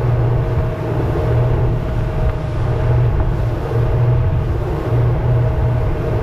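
Twin outboard motors on a RIB boat running at high speed, a steady loud drone that pulses slightly, over the rush of wind and water from the wake.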